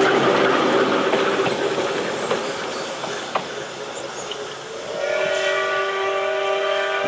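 A passing interurban railcar's wheels rumble and click over the rails, fading as the car draws away, with one sharp click about three seconds in. About five seconds in, a train whistle starts sounding a steady chord of several notes and holds it.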